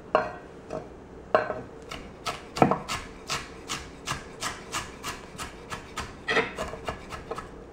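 Chef's knife mincing fresh ginger on an end-grain wooden cutting board: a few scattered chops, then a run of quick, even chops at about four a second that thins out near the end.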